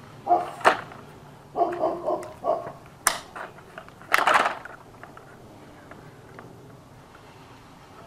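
Tin snips cutting vinyl siding: a few sharp snips, with a longer crunching cut about four seconds in. Three short pitched calls come in quick succession around two seconds in.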